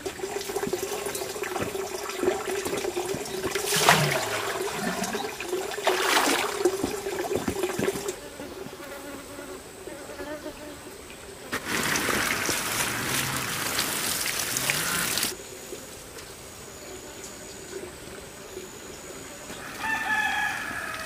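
Water pours from a watering can for about four seconds midway. Near the end a rooster crows once.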